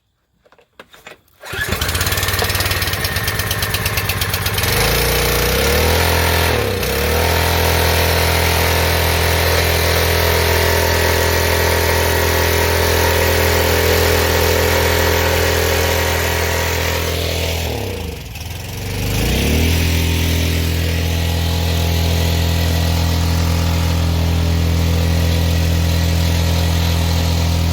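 Small single-cylinder gas engine of a Craftsman pressure washer running steadily after its carburetor has been cleaned out, coming in about a second and a half in. Twice, around 6 s and again around 19 s, the engine speed sags briefly and then picks back up.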